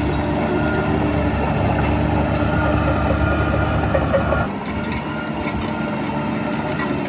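Heavy construction machinery's diesel engine running steadily with a deep rumble and some steady whining tones. About four and a half seconds in, the rumble drops back and the sound becomes quieter.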